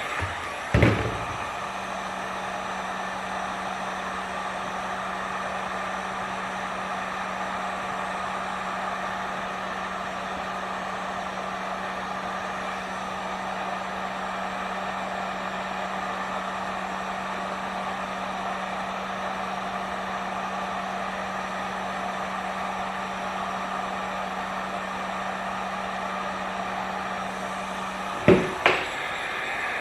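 Electric heat gun blowing steadily. About a second in, a couple of clicks are followed by a low steady hum that joins the blowing, and the hum stops with two more clicks near the end.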